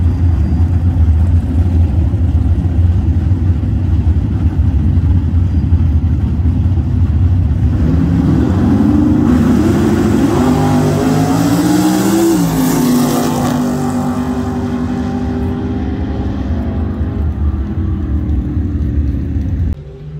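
Drag-race car engines running loud at the starting line. About eight seconds in they launch: the engine note climbs steeply, drops once at a gear change, then carries on more faintly as the cars run away down the strip.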